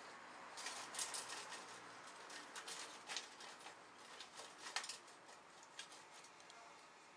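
Dry twigs rustling and clicking as metal tongs poke and push them down into a can: a run of light clicks and scrapes that thins out after about five seconds.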